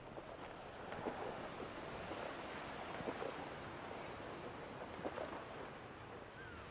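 Small lake waves washing steadily against the shore, with some wind, easing off slightly near the end.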